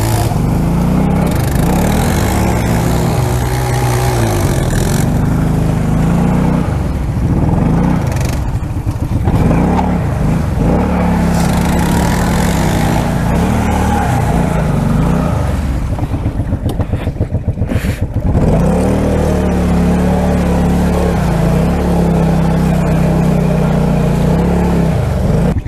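ATV engine revving hard and unevenly, rising and falling, as the wheels spin and throw mud and water in a deep mud hole. The quad is stuck, driving on two wheels only because four-wheel drive is not engaged.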